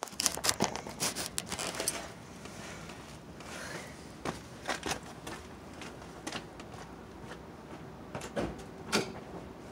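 Handling clicks and knocks as a phone is set down and steadied: a cluster of them in the first two seconds, then a few scattered knocks over a quiet background. The diesel engine is not yet running.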